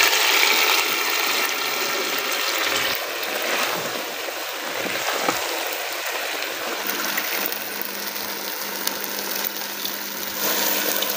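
Chopped tomatoes frying in oil in a pot, sizzling steadily as ground onion paste is poured in and stirred with a spatula. The sizzle is loudest at first and settles a little quieter after about three seconds.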